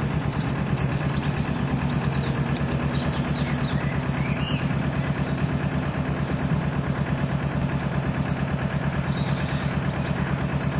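Canal narrowboat's diesel engine chugging steadily, with an even pulsing beat.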